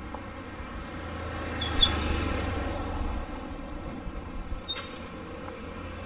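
A vehicle passing on the street, its noise swelling to a peak about two seconds in and then slowly fading, with a sharp click at the loudest point and a few light clicks near the end.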